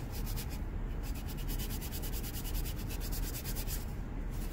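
Hand sanding with sandpaper: quick, even back-and-forth strokes rubbing down hardened super glue filler on a plastic e-brake handle, with two brief pauses.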